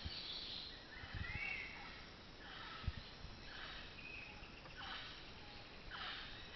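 Wild birds calling in rainforest: a string of short, harsh calls about once a second, one with a rising-then-falling note, over a steady forest background hiss.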